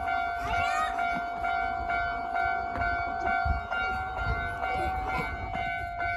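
Japanese railway level-crossing warning signal ringing: a steady electronic tone struck over and over, about twice a second, over a low rumble.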